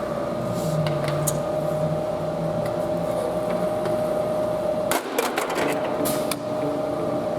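MIG (GMAW) seam welding arc on thin-gauge steel: a steady crackling hiss with a constant hum and scattered sharp pops, broken briefly about five seconds in.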